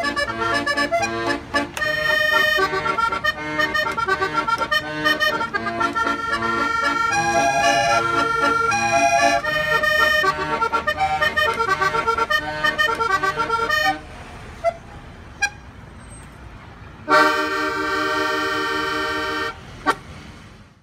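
Button accordion playing a tune of melody notes over chords, which stops about 14 seconds in. After a quieter lull, a loud held tone sounds for about two seconds near the end.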